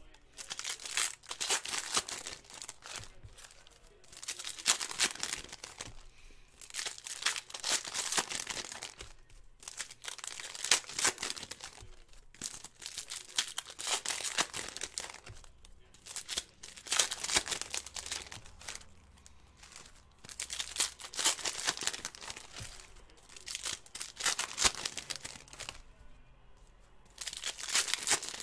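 Panini Prizm basketball card packs being torn open one after another: the plastic wrappers tearing and crinkling in repeated bursts a few seconds apart.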